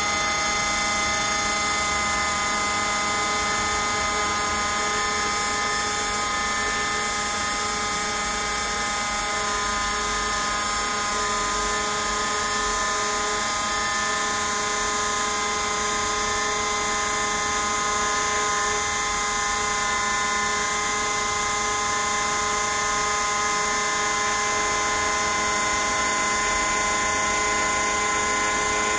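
A small CNC router carving: the spindle runs with a steady high whine of several tones over a cutting hiss.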